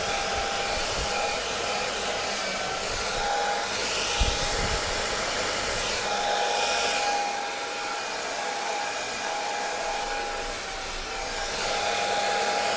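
Handheld electric hair dryer running steadily: an even rush of blown air with a faint thin whine from its motor and fan, and a brief low bump about four seconds in.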